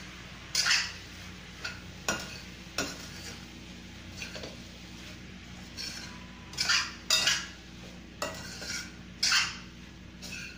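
A metal spoon stirring soaked puffed rice in a stainless steel kadhai, with irregular scrapes and clinks against the pan every second or two, the loudest about two-thirds of the way through.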